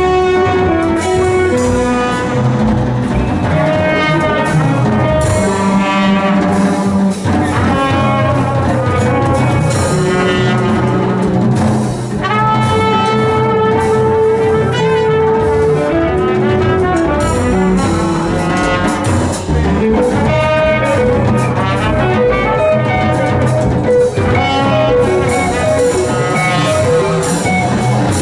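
Live jazz quartet playing: a trumpet carries the melody over guitar, upright bass and drum kit with ride cymbal.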